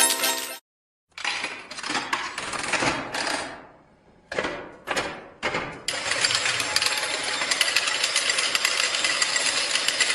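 Slot machine coin payout: a rapid metallic clatter of coins dropping into the tray, first in several bursts and then in a continuous stream for the last four seconds or so. The tail of a jingle ends about half a second in.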